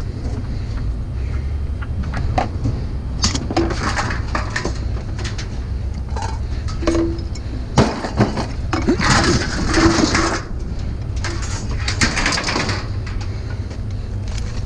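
Scrap metal being pulled and cut apart by hand: scattered metallic clinks, snaps and knocks with a few short bursts of scraping, over a steady low rumble.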